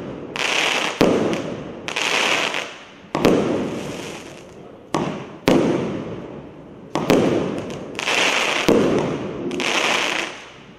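Compact 48-shot fireworks cake with 26 mm tubes firing shot after shot. Sharp bangs come every second or two as the shells burst, each followed by a crackling, sizzling spray of stars that fades within about a second.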